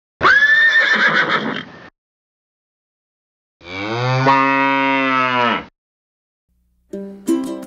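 A short, rough call about a second and a half long, then a steady cow moo lasting about two seconds. Plucked-string music starts near the end.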